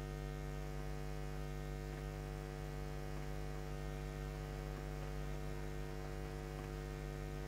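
Steady electrical mains hum: a low, unchanging buzz with a ladder of evenly spaced higher tones above it.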